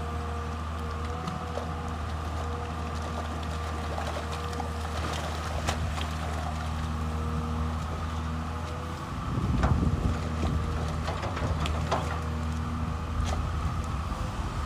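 Komatsu PC210 excavator's diesel engine running steadily, with a steady whine above the engine note. About nine seconds in the engine grows louder and rougher, with a few sharp knocks.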